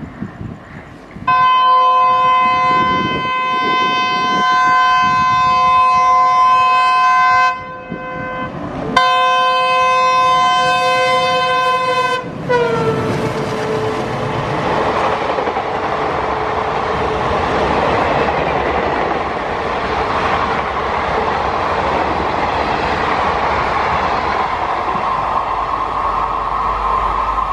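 A diesel locomotive's multi-tone horn sounds a long blast, then a second blast. Its pitch drops as the locomotive passes at speed. The express's coaches then rush past with steady rumbling and wheel clatter over the rail joints.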